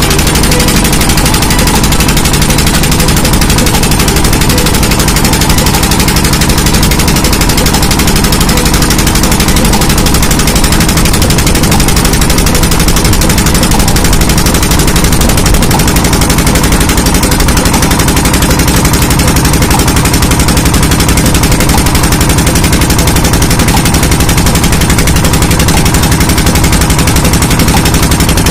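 Motor boat's engine running steadily and loudly, a fast even chugging under a rushing haze of noise.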